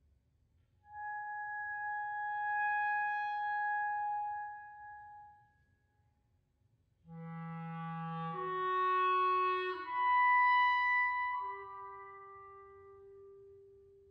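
Amplified electric clarinet holding one long note that swells and fades, then, after a short pause, several notes sounding together and overlapping, layered by electronic delay and pitch transposition, ending on a lower held note that fades away.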